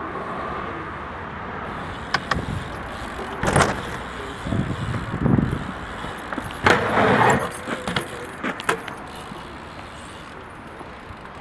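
BMX bike rolling over asphalt with a metallic rattle, and several sharp knocks and clatters from the bike, loudest about a third of the way in and again just past the middle as it rides close by.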